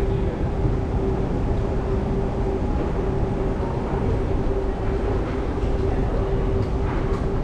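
Steady low rumble with a constant mid-pitched hum running underneath, the ambience of an underground subway station.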